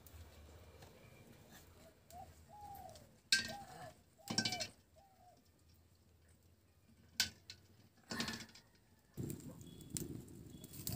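A few sharp knocks and clinks, spaced a second or more apart, as peeled boiled eggs are handled and put into a metal pan of water. A handful of faint, short animal calls sound in the background between about two and five seconds in.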